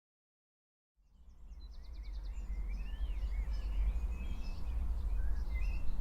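A recording of wild birds singing fades in about a second in: many short rising and falling chirps and whistles and a quick trill, over a low, steady rumble of outdoor background noise.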